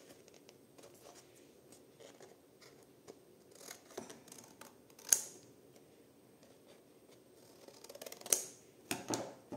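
Scissors cutting through cereal-box cardboard covered with patterned paper: a few separate sharp snips with quiet handling between, the loudest about five and eight seconds in.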